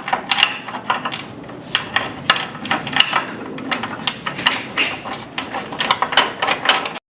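Irregular clicks, taps and light knocks of hand tools and metal mounting hardware being handled while front-splitter brackets are fastened to a car. The sound cuts off abruptly near the end.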